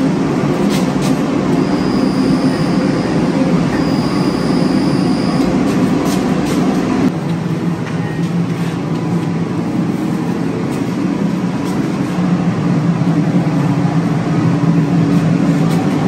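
Steady mechanical drone of tyre-shop machinery, with a faint high whine early on; its tone shifts abruptly about seven seconds in.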